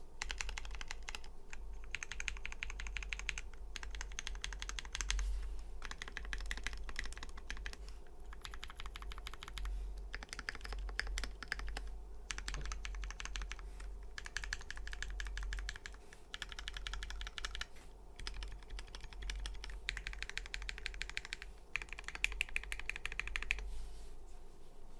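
Modifier keys on a Switch Couture Alice keyboard with lubed Drop Holy Panda v1 tactile switches, an acrylic plate and GMK keycaps, pressed rapidly over and over. The clacking comes in runs of a second or two separated by short pauses, about a dozen runs in all.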